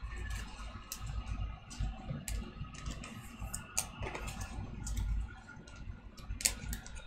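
Scattered, irregular light clicks and taps, a few a second, over a low rumble.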